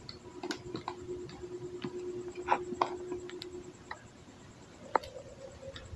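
Crunching of Pringles potato chips as they are bitten and chewed: a run of crisp cracks and clicks over the first few seconds, and one sharp crack about five seconds in.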